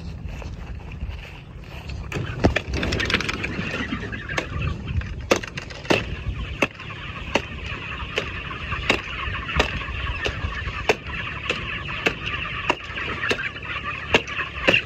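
A flock of broiler chickens peeping and chattering inside a pasture chicken tractor, over a low rumble. From about five seconds in there are sharp knocks at a steady beat, about every two-thirds of a second.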